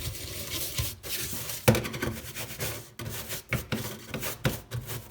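Scrubbing with a stiff brush: irregular rough rubbing strokes with a few light knocks in between.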